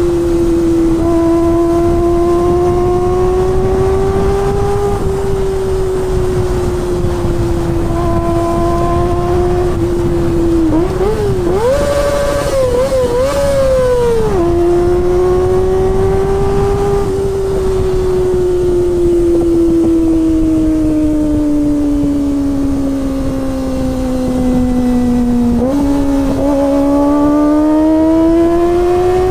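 Kawasaki ZX-25R's 249 cc inline-four engine running at high revs, its pitch drifting slowly up and down. About eleven seconds in the pitch climbs higher and wavers for a few seconds. Afterwards it sinks slowly, then steps up suddenly and rises again near the end.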